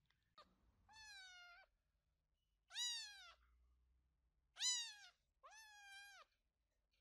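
A kitten meowing four times, high-pitched cries that fall in pitch at the end, the third the loudest.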